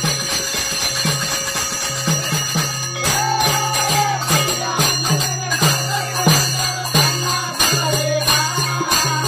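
Devotional bhajan music without voices: a harmonium holds a steady low drone and plays a melody over it, while a group of small brass hand cymbals clash and jingle in a steady beat of about two strokes a second.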